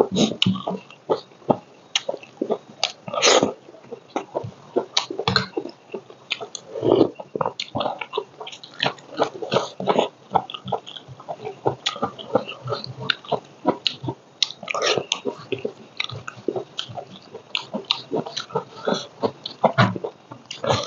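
Close-miked eating: a dense, irregular run of wet chewing and lip-smacking as a man eats rice and boiled bamboo shoot by hand.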